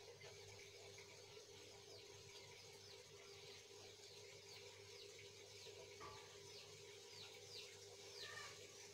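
Faint high chirps of small birds, short falling notes about one or two a second, a little louder near the end, over a steady low hum.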